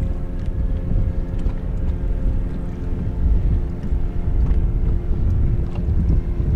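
Wind buffeting the microphone over the steady hum of a boat motor.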